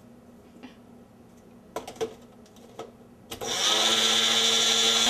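A few clicks and knocks as the blender cup is handled. Then, about three seconds in, a small bullet-style blender's motor starts and runs steadily with a high whine, grinding black mustard seed with green chilies.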